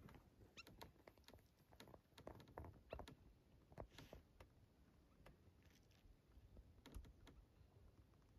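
Near silence broken by faint, irregular small clicks and taps, clustered in the first three seconds and again around seven seconds.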